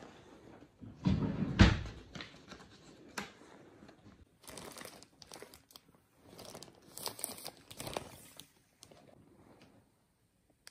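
Plastic postal parcel bag crinkling as it is handled, with a loud thump about a second and a half in.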